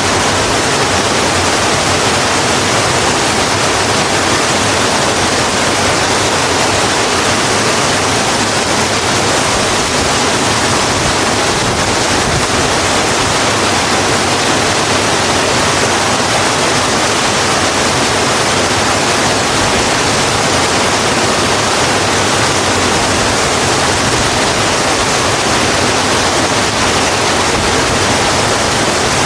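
Steady heavy rain falling on a road, an even unbroken hiss with no distinct drops standing out.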